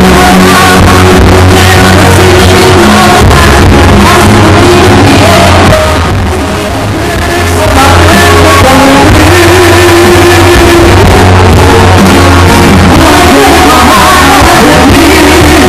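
Live band playing a song over a loud PA, with a woman singing into a handheld microphone. The music drops back briefly about six seconds in, then comes back at full level.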